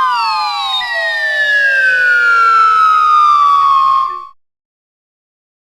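Cartoon falling-whistle sound effect: clear whistle tones sliding slowly downward in pitch. A second descending whistle joins about a second in, and both fade out together about four seconds in.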